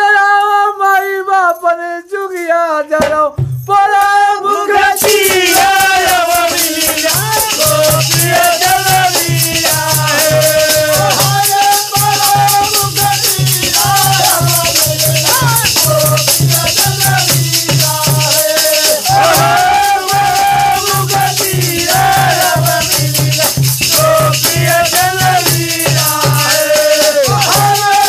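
Village men singing a Hindi Holi folk song, one voice carrying the melody at first. About four to five seconds in, a fast jingling percussion and a low pulsing beat join under the singing and run steadily on.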